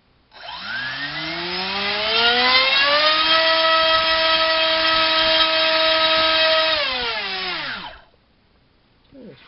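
Turnigy D2826 2000kv brushless outrunner motor spinning an APC 6x4 electric propeller on a thrust stand. It spools up with a rising whine over about three seconds, holds a steady pitch at full throttle for about three and a half seconds, then winds down and stops about eight seconds in. A short rising chirp comes just before the end.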